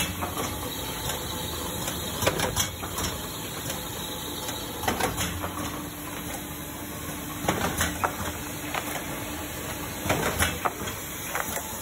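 Tauler Printlam 52 sheet laminator running: a steady mechanical hum with sharp clicks and clacks in small clusters every two to three seconds.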